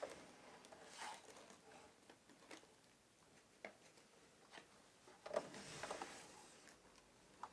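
Mostly near silence, with faint handling noises from a Hikvision network video recorder's metal case being turned in the hands: scattered light taps and rustles, a few louder ones around five to six seconds in.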